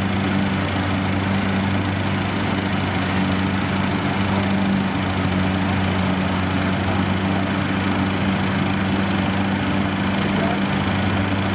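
Rice combine harvester running steadily under heavy load, with a steady drone and a whine from its gearbox. The operator says the gearbox has begun to whine and howls with the lever pushed fully over.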